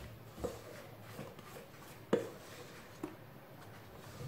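Thick sponge-cake batter being poured from a stand mixer's metal bowl into a springform pan: soft wet plops and three short knocks, the loudest just after two seconds in.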